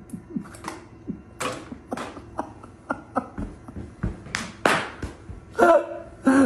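Plastic pet-food bag crinkling and rustling in irregular crackles as a cat pulls at it and pushes its head into it. Two short vocal sounds near the end are the loudest events.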